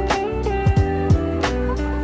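Background music with a beat: low thumps that drop in pitch, sharp hits and held notes.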